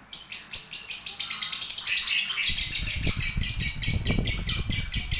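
Lovebird singing a long, unbroken chatter of rapid high chirps, about seven a second, set off by its owner's call. A low rumble runs underneath from about halfway.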